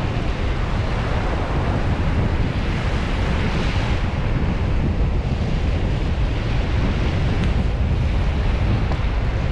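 Small Gulf surf waves breaking and washing up a sand beach, with wind buffeting the microphone; the wash swells louder about three and a half seconds in.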